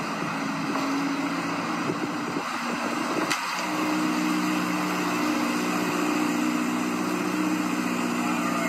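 Chevrolet C8 Corvette's V8 idling steadily, with a sharp click about three and a half seconds in, after which the idle note shifts slightly and runs a little louder.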